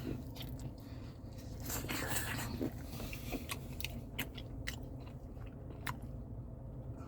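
Biting into a slice of crispy-crust Kwik Trip pepperoni and sausage pizza and chewing it. A loud crunch comes about two seconds in, followed by scattered crackly clicks as it is chewed.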